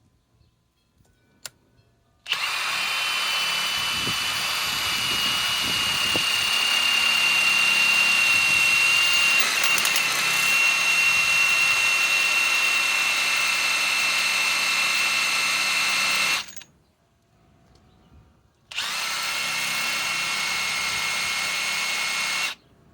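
Bosch GDS18V-330C cordless mid-torque impact wrench hammering steadily as it drives a large lag screw into wood. It runs for about fourteen seconds, stops, then runs again for about four seconds.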